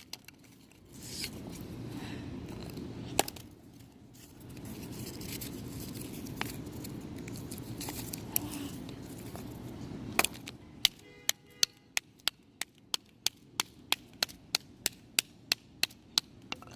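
Broken cardboard pieces being handled with a rough rustling, then a steady run of sharp clicks, about three a second, in the last third.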